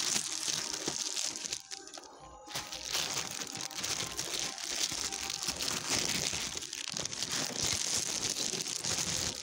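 Continuous crinkling and rustling of handled paper, with a brief lull about two seconds in and a shorter one near seven seconds.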